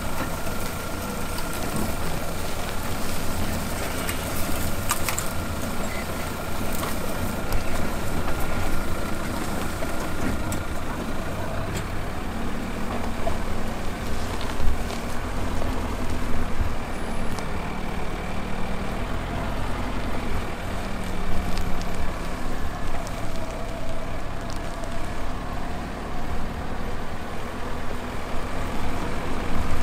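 An SUV engine running low and steady as the vehicle crawls down a rough grassy slope, with tyre and suspension rumble and a few short knocks.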